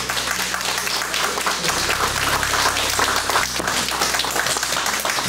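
A small audience applauding, many hands clapping at once, steady throughout.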